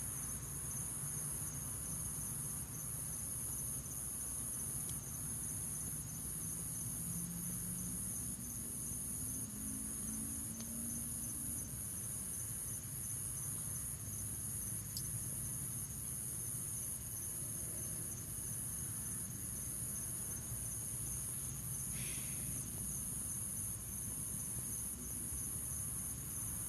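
A steady, high-pitched insect chorus, with a faint low hum underneath and a faint tick or two.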